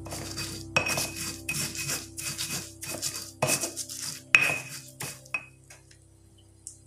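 Stone pestle pounding and grinding garlic cloves with salt in a stone mortar (cobek and ulekan): an irregular run of knocks and scrapes for about five seconds. The hardest knocks leave a short ring.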